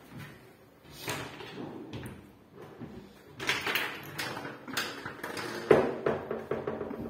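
Laminated wooden wardrobe doors being swung open on concealed hinges: a run of knocks and rattles from the doors and handles, the sharpest near the end.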